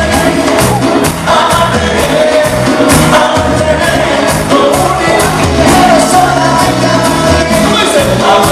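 Live Latin pop band playing, with a male lead singer over congas, electric guitar and a bass line that repeats.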